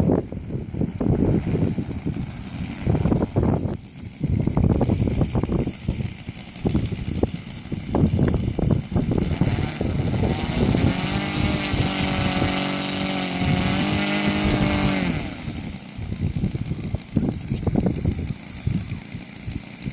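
Scale model Westland Wyvern's engine running on its take-off roll, with a steady high whine and a strong, steady engine note about halfway through that fades after about five seconds. Gusty wind buffets the microphone throughout.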